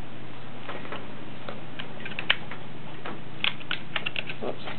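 Small scattered clicks and taps of the eraser unit being fitted and its bolts locked back onto the whiteboard, with a quick run of clicks near the end, over a steady low hum.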